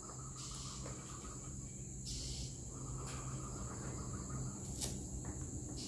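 Crickets chirring in a steady high drone, with a faint click about five seconds in.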